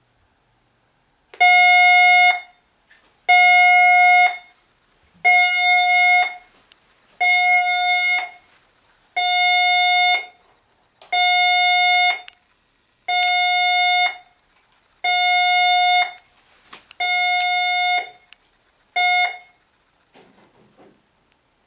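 Fire alarm sounding as a test during a periodic inspection: a steady electronic tone about a second long, repeated about every two seconds, ten times. The last one is cut short and the alarm stops.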